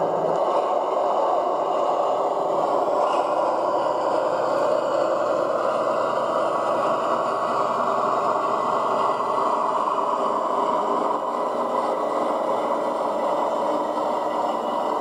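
Lenz O gauge DB V100 model diesel locomotive running along set track curves pulling a wagon: a steady mechanical running noise.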